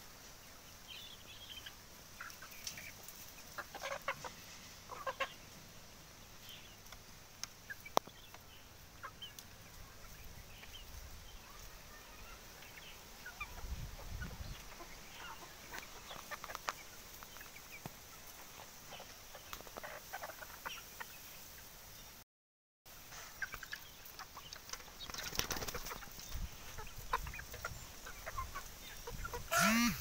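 A flock of free-range desi chickens clucking and calling now and then, with short scattered clucks throughout. A louder, rising call comes right at the end.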